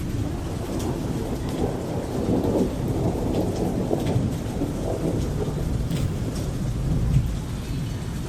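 Dark ambience of a thunderstorm: a continuous low thunder rumble with rain pattering over it, and scattered faint drop-like clicks.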